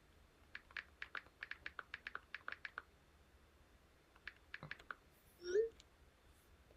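Computer keyboard typing: a quick run of about fifteen key clicks, then a few more after a pause, followed by a short sliding tone.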